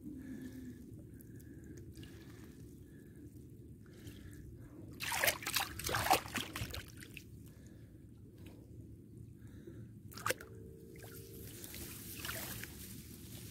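Water dripping and splashing as a fishing net with foam floats is paid out by hand into a muddy ditch, with a burst of louder splashing about five to seven seconds in.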